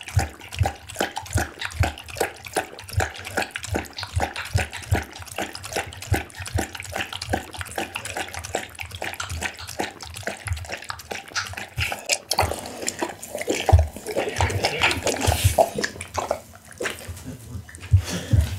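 A pit bull lapping and licking at a nearly empty glass bowl, with quick wet laps about four a second. After about twelve seconds the laps turn irregular and messier.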